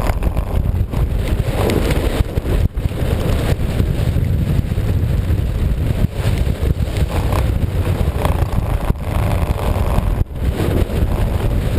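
Wind battering the camera microphone over the steady noise of an off-road vehicle running.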